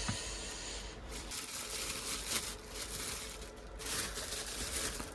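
A food-delivery takeout bag rustling and crinkling in irregular bursts as it is opened and the food is unpacked.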